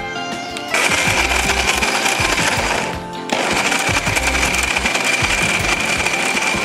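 Electric mixer grinder running with its small jar, grinding paneer and thickened custard into a paste, with a steady high whine over the motor noise. It starts under a second in, stops for a moment about three seconds in, then runs on.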